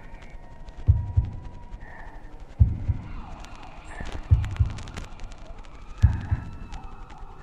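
Slow heartbeat sound effect: four deep double thumps, each pair about 1.7 seconds after the last, with a faint siren wailing underneath.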